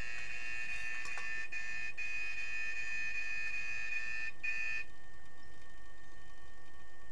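Underwater hockey referee's underwater buzzer sounding a steady high tone, heard underwater, signalling a stop in play. It sounds for about five seconds with a brief break just before it cuts off.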